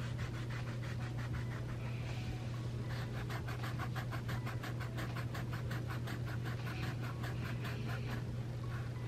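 An old kitchen knife sawing back and forth on a tennis ball's felt and rubber, struggling to cut a hole through it: a fast, even rasping scratch at about six strokes a second, over a steady low hum.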